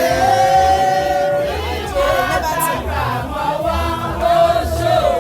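Background music: a song with voices singing long held notes in harmony over a steady low beat.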